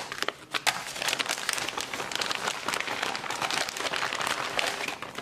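Plastic vacuum-sealed bags of frozen salmon fillets crinkling and rustling as they are handled and put into a stainless steel bowl, a dense run of crackle with many sharp clicks.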